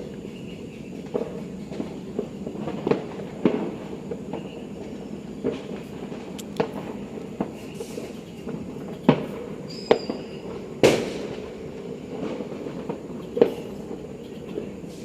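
New Year's fireworks and firecrackers going off irregularly, about a dozen sharp bangs over steady background noise, the loudest one about eleven seconds in.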